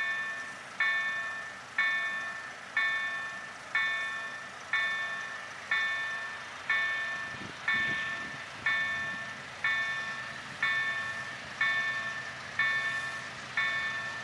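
Level-crossing warning bell ringing about once a second, each ring dying away before the next. A faint low rumble swells briefly about eight seconds in.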